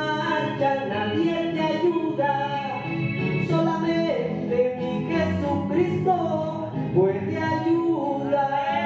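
A man singing a Spanish gospel song into a microphone over instrumental backing, his sung notes gliding and held.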